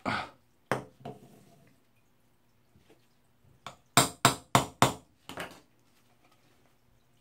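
Small hammer tapping a PVC elbow fitting onto a cement-coated PVC pipe to seat the joint: four quick sharp strikes in under a second, then one lighter tap. Earlier there are a couple of plastic knocks as the fittings are handled and pushed together.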